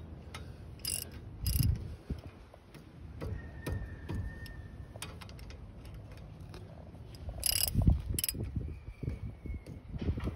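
Ratchet wrench clicking in short runs as the caliper bolts on a 2016 Nissan Frontier's front brake caliper are tightened. There are a few sharper metal clacks, with the densest clicking near the end.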